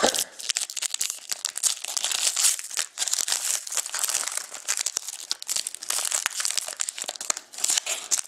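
Foil wrapper of a Panini Crown Royale hockey card pack crinkling and tearing as it is torn open and peeled back by hand, a dense, irregular crackle.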